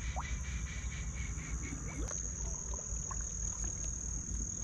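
Night insects trilling steadily at a high pitch, with a few faint short chirps and ticks over a low steady rumble.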